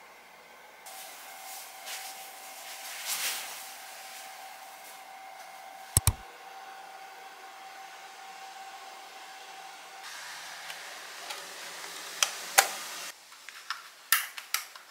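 Steady hiss with a faint steady tone, a sharp double click about six seconds in, then a run of sharp clicks and taps near the end as a disc is handled and fitted onto the spindle of a wall-mounted CD player.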